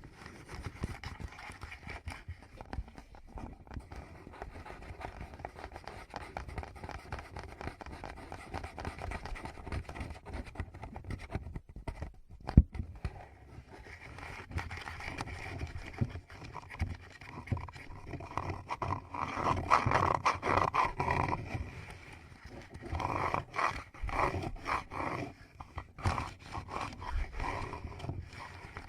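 Fingertips rubbing, scratching and tapping directly on a Tascam recorder's microphones: a dense, close crackle with occasional sharp taps, growing louder in stretches in the later part.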